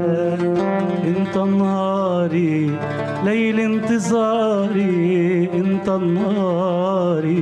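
A man singing an ornamented Arabic melody with wavering, gliding pitch, accompanying himself on a Godin electro-acoustic oud with plucked notes.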